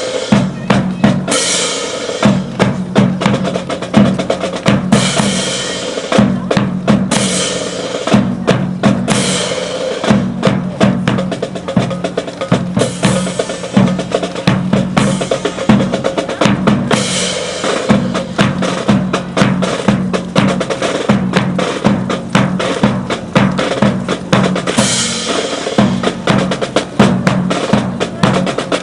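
Military drill team's drum corps playing a marching cadence on snare and bass drums, with rolls and regular beats and a bright ringing crash every few seconds.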